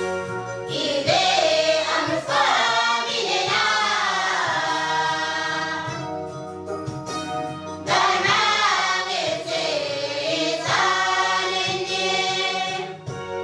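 A choir of young women singing together, phrase by phrase, with a short pause about halfway through.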